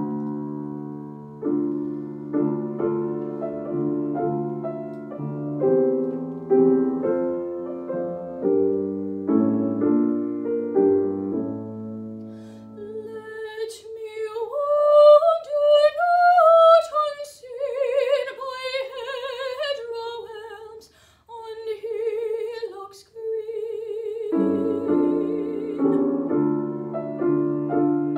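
A grand piano plays a chordal introduction. Then a young woman sings alone in a classical, operatic style, holding high notes with vibrato. About three-quarters of the way through, the piano comes back in.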